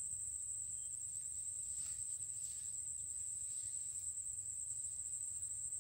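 A steady, high-pitched insect chorus: a continuous shrill trill that holds one pitch without a break.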